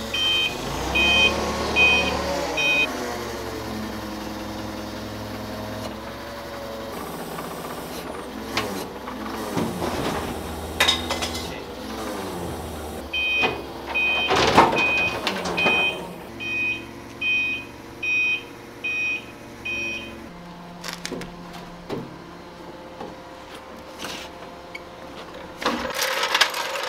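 Propane-fuelled Caterpillar forklift engine running and revving up and down as it maneuvers, with its backup alarm beeping in two runs of short beeps, about two a second: a few right at the start and a longer run in the middle.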